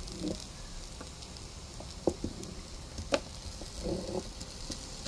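Frying in a pot with a faint steady sizzle, as vegetables are scraped off a bowl with a wooden spatula and tumble into the pot. Two sharp knocks of the spatula come about two and three seconds in.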